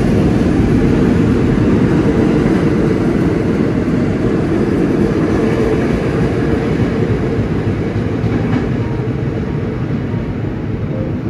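Pullman Standard R46 subway train pulling out of an underground station: a loud, steady rumble of wheels on rails. It slowly fades in the second half as the last car passes and the train draws away down the tunnel.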